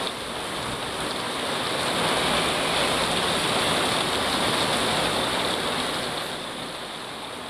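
Heavy rain pouring down on trees, a dense steady hiss that swells in the middle and eases off toward the end.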